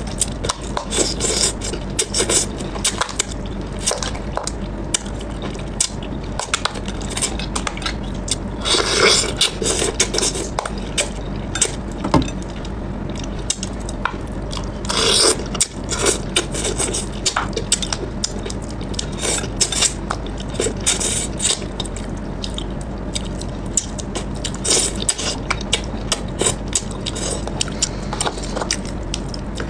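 Close-up eating sounds from a person picking at and chewing braised crucian carp: chopsticks clicking and scraping against a plastic bowl and plate, with mouth sounds. There are two louder noisy stretches about 9 and 15 seconds in, over a steady low hum.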